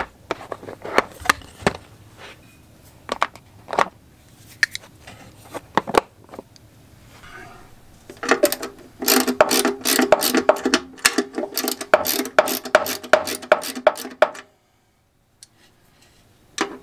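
Scattered clicks and knocks of a plastic tool case and a tool being handled, then a hand ratchet driver clicking rapidly for several seconds as screws inside the laser cabinet are turned; the ratcheting cuts off abruptly near the end.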